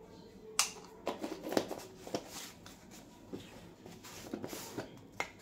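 Light clicks, taps and scraping of plastic spice jars and a small plastic spoon being handled on a kitchen counter. There is a sharp click about half a second in, a quick run of taps soon after, and a jar lid being twisted open near the end.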